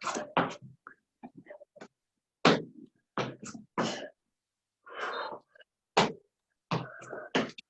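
Repeated burps, about a dozen short ones in quick, irregular succession, with a longer drawn-out burp about five seconds in.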